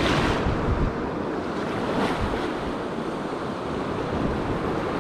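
Surf washing in over a shallow beach, with wind buffeting the microphone in low rumbles.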